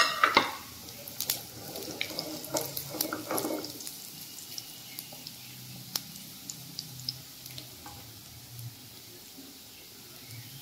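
Mustard oil sizzling and crackling in a kadhai as cumin seeds, dried red chillies and sliced garlic fry in it for a tadka. The crackling is busiest in the first few seconds, then settles to a soft hiss with occasional sharp pops.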